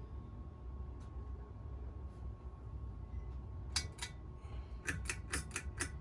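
S.M.C. Laguna ceiling fan running on low speed with a steady low hum. Near the end comes a quick run of sharp clicks and clinks, typical of the pull-chain switch being worked to change it to medium speed.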